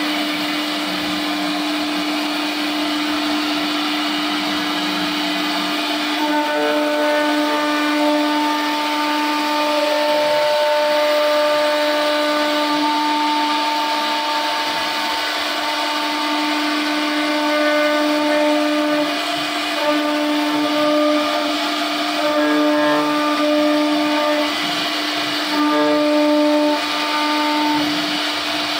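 CNC router spindle (Champion SR-1325) running at speed with a steady whine while its bit carves a profile into wood. From about six seconds in, higher cutting tones join in and drop out in stretches as the bit works along the piece.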